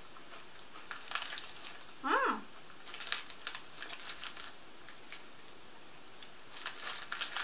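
Crinkling of a plastic snack packet and the crunch of Mini Cheddars cheese crackers being bitten and chewed, in scattered sharp crackles. A short hummed 'mm' about two seconds in.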